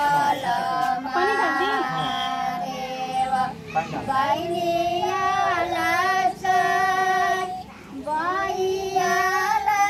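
High women's voices singing a Bhojpuri folk song (geet) in long held, sliding notes, with short pauses between phrases about four and eight seconds in.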